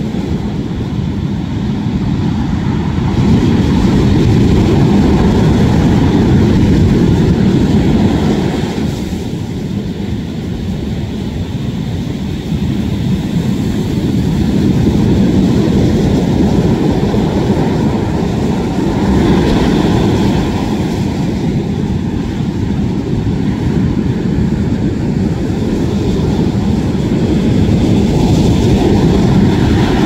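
Rough winter sea surf breaking on a sandy beach: a loud, low rush of waves that swells and eases every several seconds.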